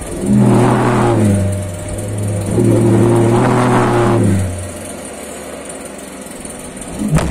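Homemade LPG-fuelled valveless pulse jet firing twice in short runs of about two seconds each, a steady low drone that dies away after each run, with its pitch sagging at the end of the second. A sharp pop just before the end.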